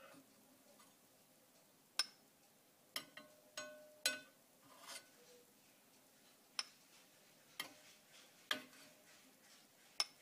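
Sharp, irregular clinks of a metal skimmer against a saucepan and a small glass bowl, about ten of them, a few ringing briefly. The milk-solid foam is being skimmed off melted butter to clarify it.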